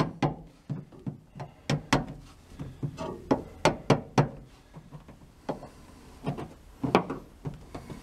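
Irregular sharp taps as a strip of window molding is tapped down along the edge of a car's luggage-compartment trim panel to hold the upholstery flap in place. The taps come thickly for the first few seconds, then more sparsely.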